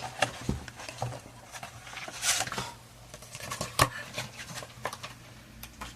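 Handling noises from hands moving small objects: scattered light clicks and taps, with a short rustle a little over two seconds in and a sharper click near four seconds.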